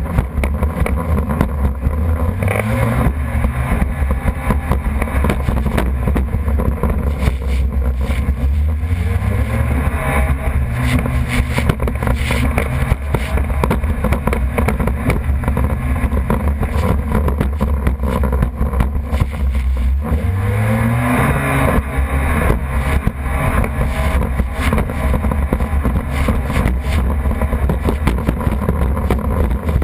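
Jet ski engine running hard and steadily, revving up with a rising pitch about two seconds in, again around nine seconds, and again around twenty-one seconds.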